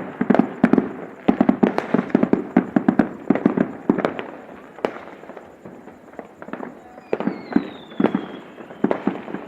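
New Year fireworks going off: a rapid, dense run of sharp cracks and bangs that thins to scattered bangs after about five seconds. About seven seconds in, a whistle falls in pitch over a second or so.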